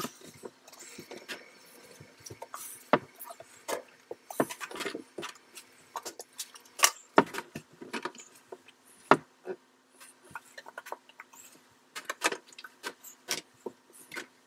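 Plastic shampoo and body-wash bottles being set down and shuffled on plastic shower-surround shelves: a string of light, irregular knocks and clacks over a faint steady hum.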